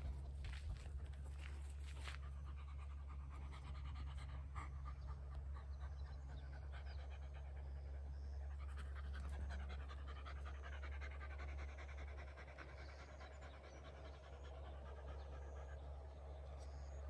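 A dog panting steadily over a steady low hum.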